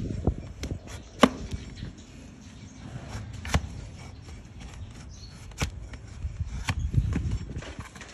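Heavy flat trimming blade shearing through a donkey's hoof horn: a series of sharp cracks at irregular gaps, the loudest about a second in, over low knocking and rumbling.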